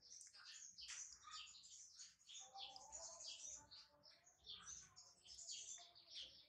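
Small birds chirping faintly, many short high chirps overlapping without a break.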